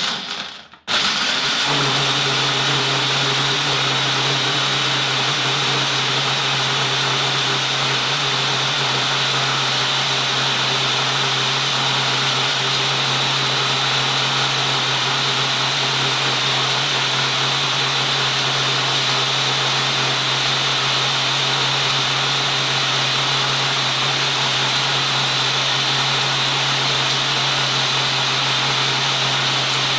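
Ninja Mega Kitchen System's 1500-watt blender motor running on the single-serve program, blending a banana, milk, almonds and chocolate chips into a smoothie in the single-serve cup. A short burst and a brief pause about a second in, then a loud, steady run.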